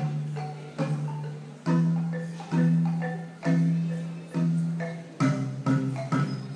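Home-built wooden marimba played as a duet with mallets: struck low bass notes ring out about once a second under a line of shorter, higher notes. The bass moves to a lower note about five seconds in.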